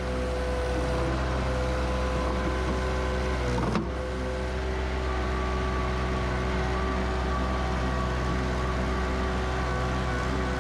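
Perkins 25 hp diesel engine of a compact track loader running steadily, with a steady whine over it and a sharp clank about four seconds in.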